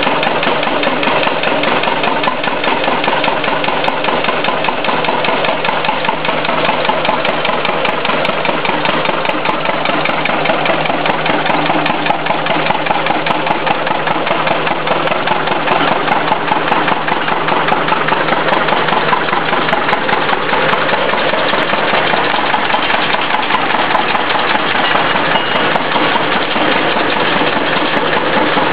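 Lister 12 hp twin-cylinder diesel engine running steadily, driving a lineshaft, with an even, rapid firing beat.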